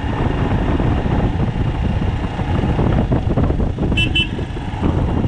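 Motorcycle riding along with its engine running under a steady rush of wind noise; about four seconds in, a horn gives two short beeps.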